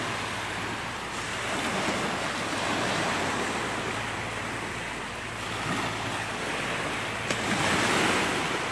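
Small waves breaking and washing up on a sandy shore. The surf swells and fades every few seconds.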